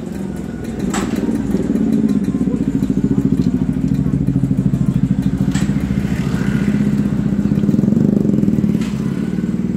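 Motorcycle engine idling with a steady, rapid, even pulse, and three sharp knocks: one about a second in, one past the middle and one near the end.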